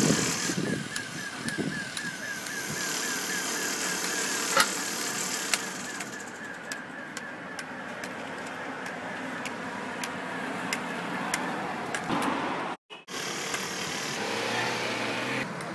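White cane tapping on a concrete sidewalk, a sharp tick about every half second, over steady street traffic noise.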